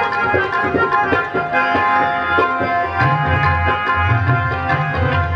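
Sikh kirtan music: tabla playing, with deep bass-drum strokes, over the steady held notes of a harmonium.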